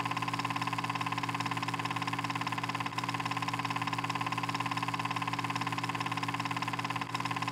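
Film projector sound effect: a steady, fast mechanical clatter over a constant hum, running without a break apart from two brief dips.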